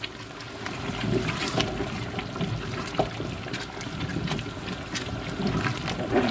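A spoon stirring through thick, simmering tomato stew in a large pot: wet, irregular sloshing and bubbling with scattered small clicks and knocks.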